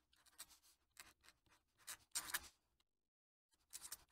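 Fountain pen nib scratching faintly across paper in short cursive strokes, with a brief pause about three seconds in before the strokes resume.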